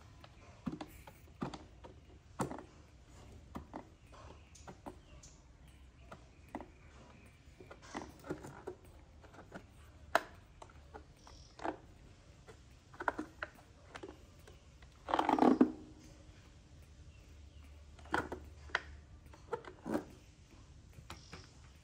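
Scattered short clicks and smacks of a baby monkey sucking at a milk bottle, with one longer, louder sound about fifteen seconds in.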